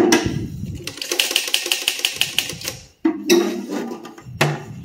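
Vintage portable typewriter's mechanism clicking in a fast, even run of about seven clicks a second for under two seconds, then a knock as the machine and its plastic case are handled.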